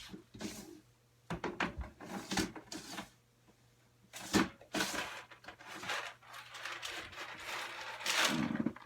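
Handling noises: irregular clicks, knocks and rustling as small craft supplies and their packaging are picked up and moved about.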